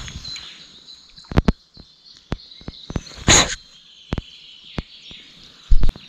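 Birds chirping over a steady outdoor background, with scattered sharp clicks and knocks. About three seconds in there is a short loud hiss, and near the end a loud low thump.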